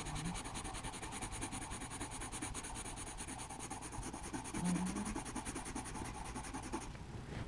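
Coloured pencil shading on drawing-pad paper: the lead scratches across the page in a steady run of quick, short back-and-forth strokes.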